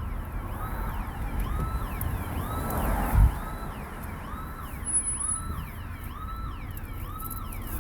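Security alarm siren whooping, a rising tone repeated about once a second ("woo, woo, woo, woo"), over a vehicle's low rumble, with a single thump about three seconds in.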